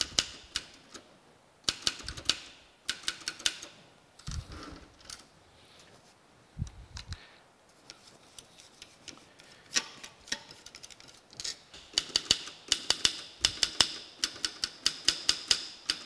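Keys of a 1938 Remington Rand manual typewriter pressed one after another in quick runs, the typebars clacking sharply. The keys are being worked to find any that stick and free them up after a denatured-alcohol cleaning. The clacking thins to scattered ticks in the middle and comes thick again near the end.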